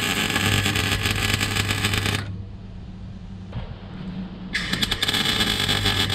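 Electric arc welder tack-welding a car's rear exhaust silencer: two bursts of crackling arc, the first stopping a little over two seconds in and the second starting about four and a half seconds in, over a steady low hum. The welder feels he isn't burning in deep enough, the weld just sitting on top.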